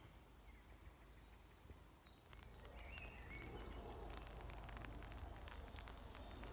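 Faint outdoor quiet with a few short bird chirps. From about two seconds in comes a low rumble and a spread of short crunching clicks, like footsteps on gravel.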